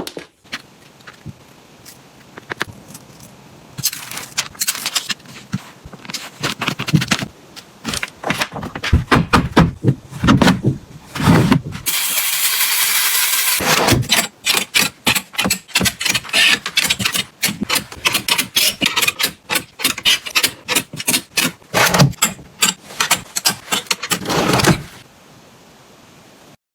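Objects being handled and set down in quick succession, a dense run of clicks, knocks and scrapes, with a steady rushing noise for about a second and a half near the middle.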